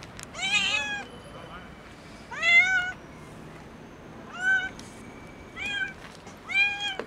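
Hungry black-and-white stray cat meowing loudly for food, five short rising-and-falling meows with the loudest about two and a half seconds in. A brief click comes at the very end.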